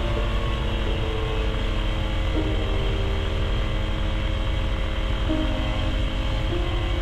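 Quad City Challenger II ultralight's engine running steadily, a dense low drone. A few held tones sit over it and change pitch every couple of seconds.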